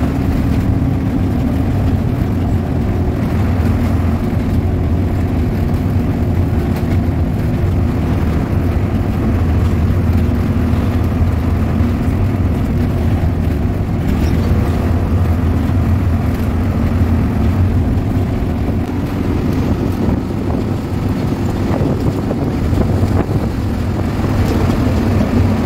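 Diesel engine of an Ena Transport coach running steadily at speed, with road noise, heard from inside the driver's cab.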